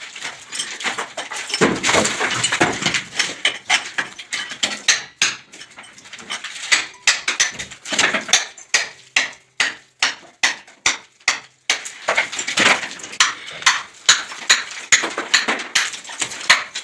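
Repeated hammer blows knocking out ceiling plaster and concrete spoiled by damp. Each strike is sharp and ringing, and they fall at about two a second through the middle.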